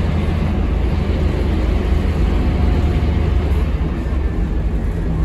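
Inside a Scania K230UB low-floor bus: its rear-mounted Scania DC9 five-cylinder diesel engine runs with a steady low drone, over a general cabin rumble.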